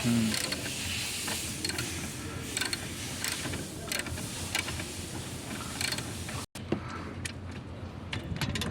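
Hand tools working on metal parts: scattered clicks, knocks and scrapes over steady workshop noise.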